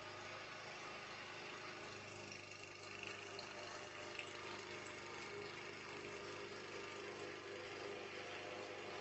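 Faint, steady mechanical hum with a few faint, short, high chirps over it.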